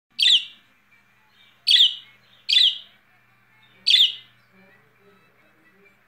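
Yellow lutino budgerigar giving four short, loud contact calls, each a quick falling chirp, spaced about one to one and a half seconds apart, to another bird.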